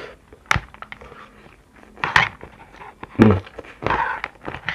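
Eating instant noodles: chopsticks clicking against the tray a few times, with slurping and chewing of a mouthful of noodles.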